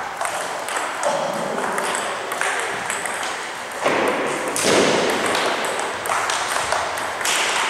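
Table tennis balls clicking off rubber-faced paddles and the table top in quick rallies, with clicks from neighbouring tables mixed in. A louder rush of noise comes about four to five seconds in.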